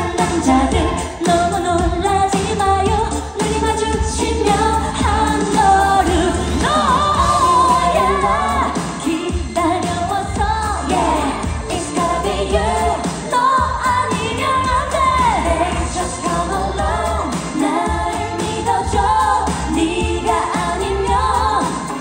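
Live Korean pop performance: a female singer sings into a handheld microphone over a loud amplified backing track with a heavy, steady bass beat.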